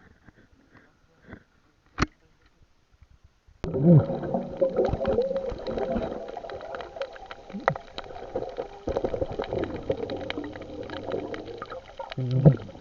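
Muffled gurgling and bubbling water noise with scattered small clicks, as picked up by a camera underwater. It starts suddenly a few seconds in, after near quiet broken by a single sharp click.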